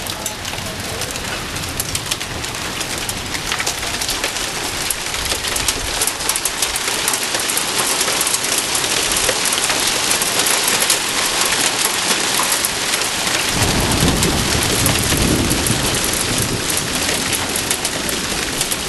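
Heavy rain turning to hail, pelting the ground and nearby surfaces in a dense patter of hits that thickens and grows louder through the first half. A low rumble of thunder comes in about two-thirds of the way through.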